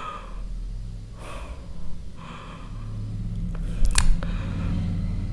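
A man breathing close to a clip-on microphone, two soft breaths about a second apart, over a steady low electrical hum. A few sharp clicks come about four seconds in and are the loudest part.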